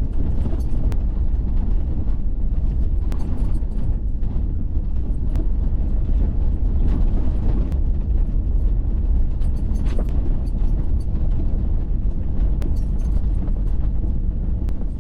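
Steady rushing of a waterfall, heaviest in the low end, with a few faint scattered clicks.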